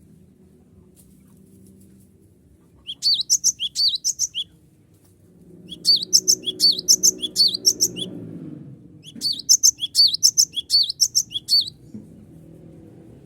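Gelatik batu (cinereous tit) singing three bursts of quickly repeated high, sharp notes, each burst about two to three seconds long with short gaps between. A faint low hum runs underneath and swells in the middle.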